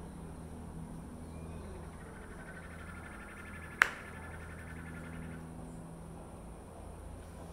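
A steady low hum with a rapid, evenly pulsed high chirping trill from about two to five seconds in, typical of an insect or small animal call, and one sharp click near four seconds that is the loudest sound.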